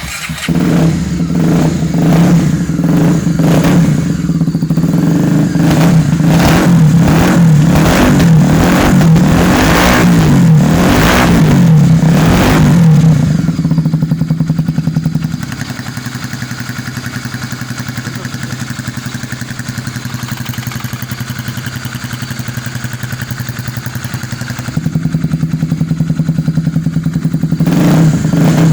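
Honda XR250 Tornado's single-cylinder four-stroke engine revved in a series of quick throttle blips, then dropping to a steady idle about halfway through. It gets louder again near the end with another rev.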